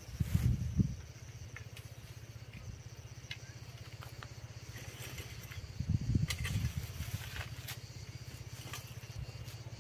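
Outdoor ambience with a steady low rumble. Two louder low rumbling bursts come, one about half a second in and one around six seconds, with a few scattered light clicks.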